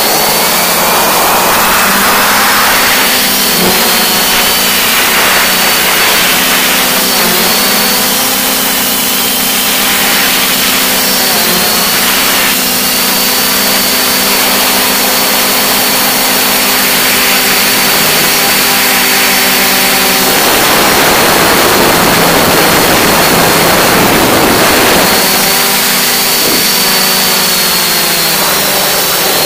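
Hexacopter motors and propellers droning steadily in flight, as picked up by the onboard camera. Their pitch dips and recovers now and then as the throttle changes, with a faint high whine underneath. For about five seconds past the middle, a rush of air noise covers the motors.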